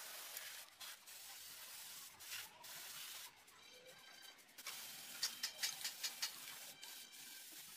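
Steady hiss with light metal clicks and scrapes from a ring spanner and feeler gauge at a diesel engine's rocker-arm adjuster as the valve clearance is set; the clicks come in a cluster about five to six seconds in.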